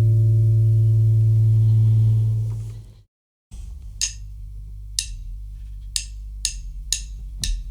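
The sustained drone ending a band's song fades out and drops to a brief dead silence at an edit. Then a run of sharp wooden-sounding ticks comes, about a second apart at first and then closer together, like a drummer's count-in to the next song.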